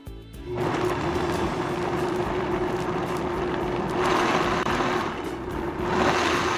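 Countertop blender starting up about half a second in and running steadily, a constant motor whine under the churning of soaked black soybeans and water being ground into a purée for kongbiji. It grows louder twice in the second half as the mix thickens and churns.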